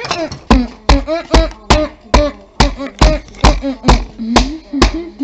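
Steady rhythmic knocking: deep thumps a little over two a second, each joined by a short pitched tone that slides up and down.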